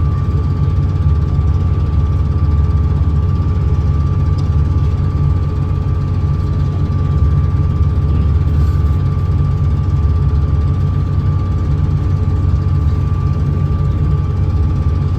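Sightseeing boat's engine running steadily: a deep, even hum with a thin steady whine above it.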